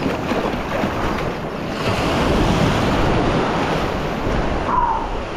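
Shallow ocean surf washing and foaming around the wader, with wind buffeting the microphone; the wash grows louder about two seconds in.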